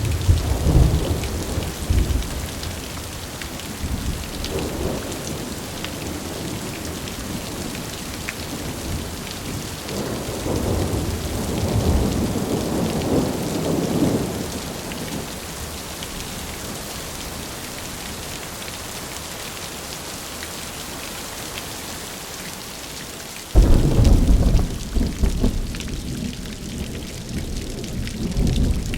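Steady rain hiss with thunder rolling in low swells several times. Near the end a sudden, loud thunderclap breaks in and rumbles on.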